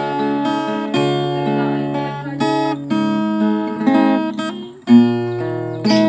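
Background music: strummed acoustic guitar, a new chord about every second, with a sharp, loud strum about five seconds in.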